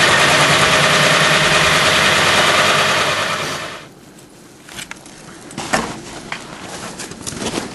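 Cheap power tool cutting out a hole, its motor running steadily with a fast buzzing rhythm, then winding down and stopping about three and a half seconds in. Scattered light clicks and knocks follow.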